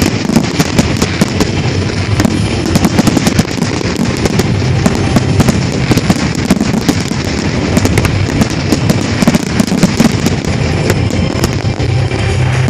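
Large fireworks display: rapid, overlapping aerial shell bursts and crackling, many sharp bangs every second with no break.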